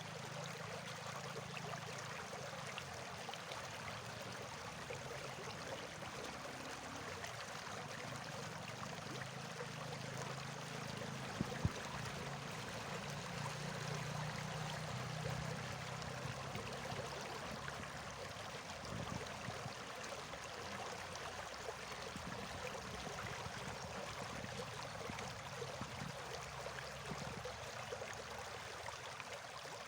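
Steady rushing of flowing water, like a stream, with a single sharp knock a little over a third of the way in.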